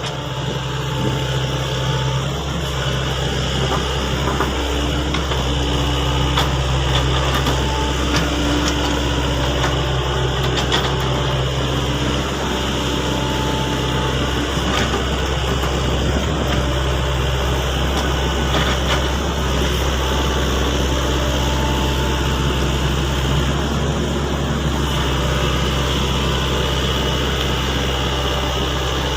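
Sany excavator's diesel engine running steadily, with a few light clicks.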